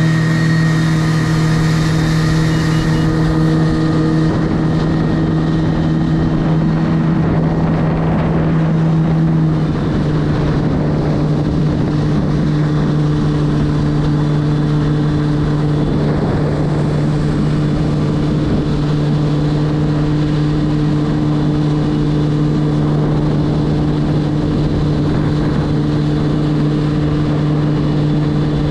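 Jet ski engine running at a steady cruise, one even droning note with water and wind noise around it. The note eases slightly lower about ten seconds in.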